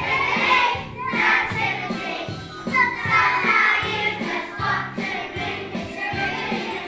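A group of young children singing together over a musical accompaniment.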